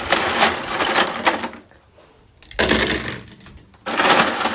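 Ice cubes clattering and cracking as they are taken from the freezer, in three bursts of rattling clicks with short pauses between.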